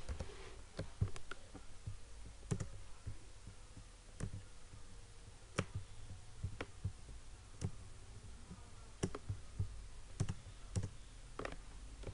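Computer mouse and keyboard clicks: single sharp clicks at irregular intervals, roughly one a second, over a faint steady low hum.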